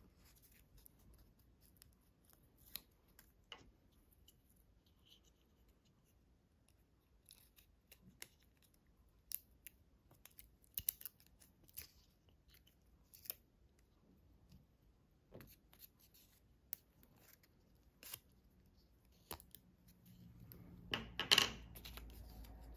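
Small plastic toy parts being handled and clicked together while a thin string is threaded through a hole, giving scattered sharp clicks and taps. A louder rustle of paper comes near the end.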